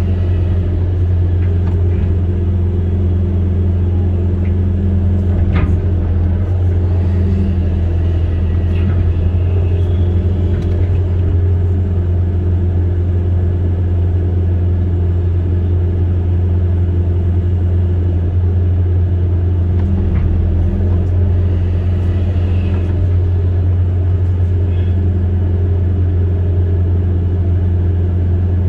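Amphibious excavator's diesel engine running at a steady speed, a constant low drone with a few faint knocks over it.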